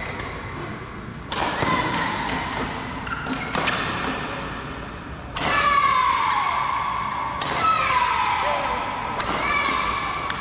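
Badminton rackets striking a shuttlecock during a fast doubles rally. There are five sharp cracks about two seconds apart, each ringing on in the large hall, with fainter hits between them.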